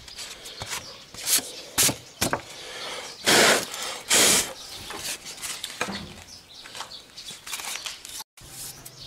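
A piece of cardboard scraping and brushing dust off a small inverter welding machine's circuit board: a few short scrapes, then two half-second whooshes of air clearing the dust, then lighter rubbing.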